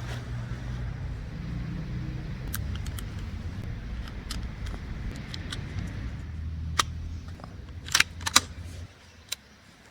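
Low, steady rumble of an idling vehicle engine, with scattered clicks and a few sharp knocks of handling; the rumble stops about a second before the end.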